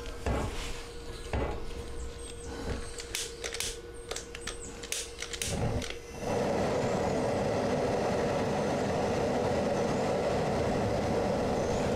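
A few seconds of clicks and knocks from handling at the burner, then about halfway through a propane burner lights with a sudden onset and burns with a steady rushing noise under the still pot, heating the mash.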